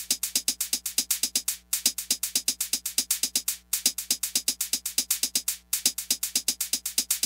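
Electronic background music driven by a fast, steady drum-machine beat, with brief breaks about every two seconds.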